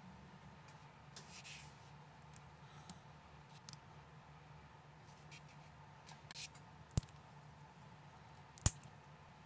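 Small plastic building bricks handled and pressed together by hand: faint rustling and light taps, then two sharp clicks as pieces snap together about seven seconds in and again a second and a half later, over a faint steady hum.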